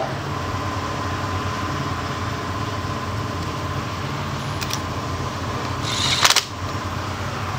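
A short burst from a Milwaukee Fuel brushless cordless impact wrench about six seconds in, over a steady background hum.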